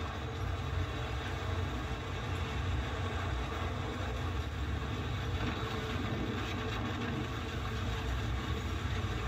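Tornado-force wind striking the camera's microphone: a steady, train-like rush of noise with heavy low buffeting, from inside the passing tornado.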